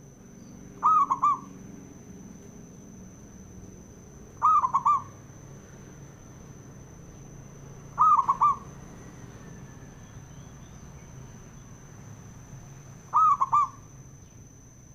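Zebra dove (perkutut) cooing: four short, loud, repeated calls, each a quick run of about three notes, a few seconds apart.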